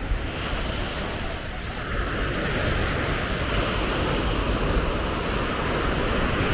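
Surf washing onto a sandy beach, a steady rush of breaking waves that swells about two seconds in, with wind on the microphone.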